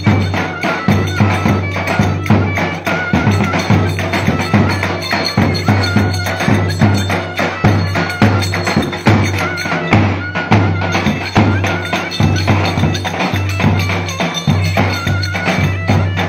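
Traditional Turkish wedding dance music: a wavering melody line over a steady, regular drumbeat and a sustained low bass.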